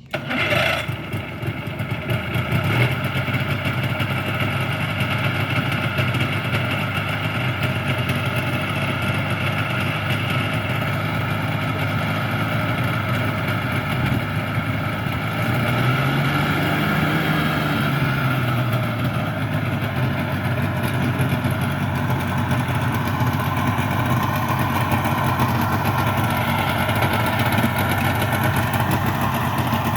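Hovercraft engine starting up and then running at a steady idle, loud and droning. About halfway through, its pitch rises briefly and then falls back.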